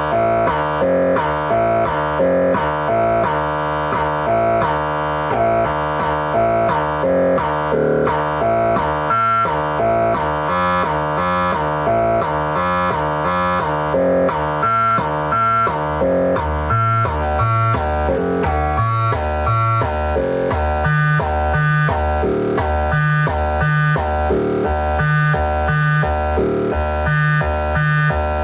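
Make Noise 0-Coast semi-modular synthesizer playing an arpeggiated pattern of short repeated notes, about two a second, sequenced by a Midicake ARP arpeggiator. About halfway through, deeper bass notes come to the fore.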